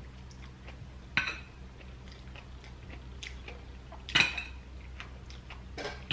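Cutlery clinking against a plate while someone eats, with sharp clinks about a second in, at about four seconds and again near the end, and faint chewing between them. A low steady hum runs underneath.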